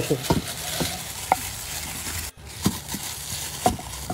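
Wooden pestle pounding fried banana in a clay mortar: a few irregular soft thuds over a steady crackling hiss, with a brief dropout a little over two seconds in.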